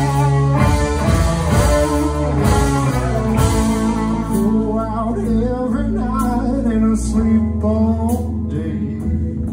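Live rock band playing: electric guitars and drums with cymbals, and a man singing.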